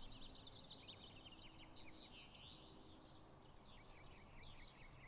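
Near silence with faint birds chirping: a steady run of quick, short chirps and a few rising calls over low background noise.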